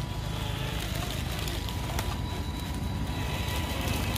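Radio-controlled car's electric motor and drivetrain running, a steady low rumble with a thin steady whine.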